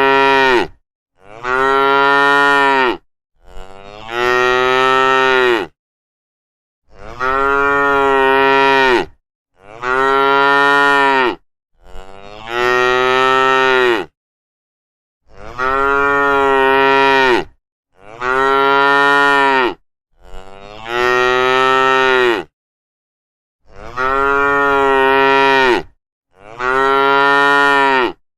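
Cattle mooing: long, drawn-out moos, each about two seconds, one after another about every two and a half seconds, with dead silence between them.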